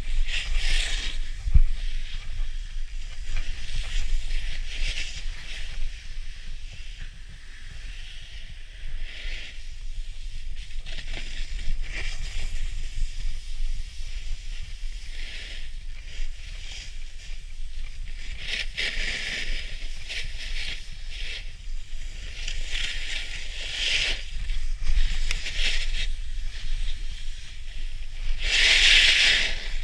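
Snowboard sliding over packed snow, its edges scraping in hissing swells every few seconds as it turns, the loudest near the end. Underneath runs a steady low rumble of wind on the microphone.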